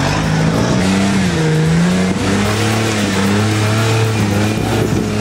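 Lifted 4x4 competition truck's engine revving up and down under load as it crawls over logs and rock steps.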